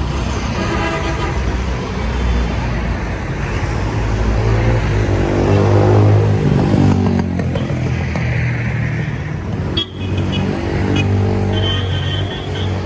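Busy city street traffic: cars and motorcycles running past close by, one vehicle swelling and fading past in the middle, with short horn toots in the last few seconds.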